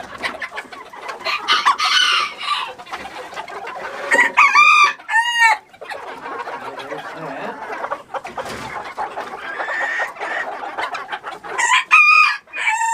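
Backyard chickens clucking, with a rooster crowing loudly twice, about four seconds in and again near the end.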